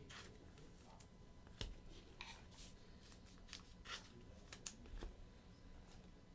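Trading cards being handled and slid into plastic penny sleeves: faint, scattered rustles and light clicks.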